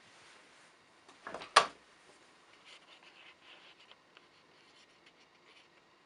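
Small handling noises at a fly-tying bench: a few light clicks and then one sharp click about one and a half seconds in, followed by faint scattered rustles and taps.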